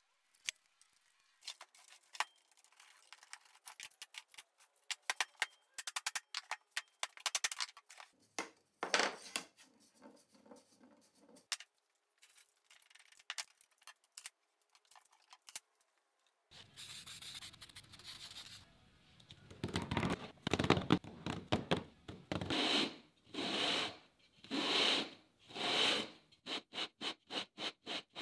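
Scratching and clicking handling noises in a workshop, then rhythmic rubbing strokes, about one a second and getting quicker near the end: a plywood drum shell's edge being sanded flat against sandpaper.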